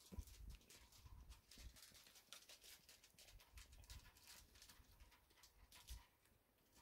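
Cat chewing dry kibble: faint, irregular crunching clicks, several a second.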